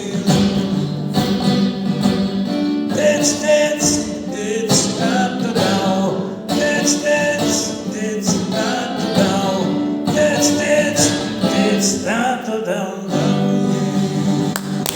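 A band playing live: a guitar-led song with a voice singing over it without clear words, near the song's end.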